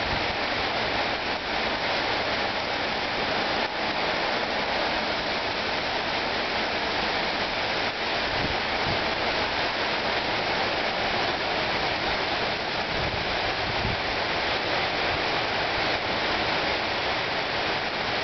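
Heavy downpour of rain, a steady, even hiss.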